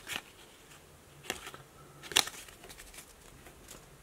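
Stack of hockey trading cards being flipped through by hand: a few short clicks and slides of card stock, the loudest about two seconds in.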